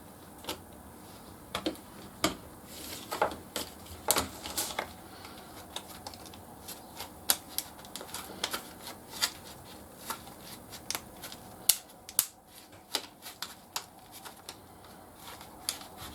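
Irregular small plastic clicks and taps as the two halves of a replacement Renault Megane key fob shell are handled and pressed together.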